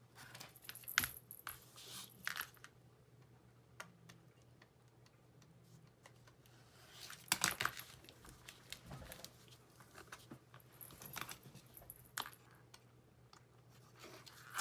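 Light, scattered clicks, taps and scrapes of a cutter working along the fabric edge of a cross stitch mounted on a board, with a louder cluster about halfway through, over a faint steady hum.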